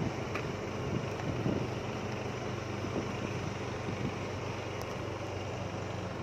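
A vehicle engine running steadily at cruising speed, with wind rushing over the microphone as the recording vehicle moves.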